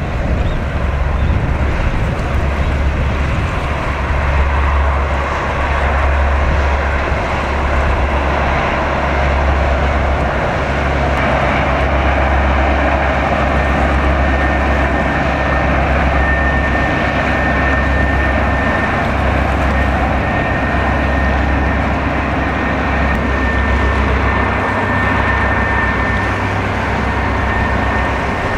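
Coast Guard patrol ship passing at speed: a steady low engine drone over the rush of its wake, with a faint high whine joining about halfway through.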